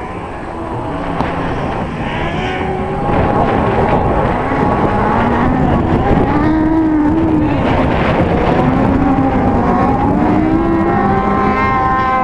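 Off-road racing buggy engines revving hard and easing off, the pitch rising and falling again and again, getting louder from about three seconds in.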